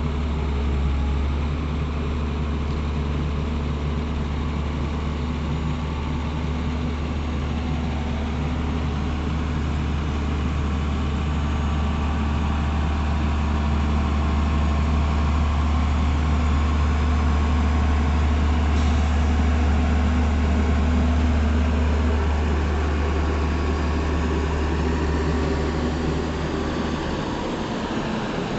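Heavy diesel engine running steadily with a low hum, a little louder through the middle stretch.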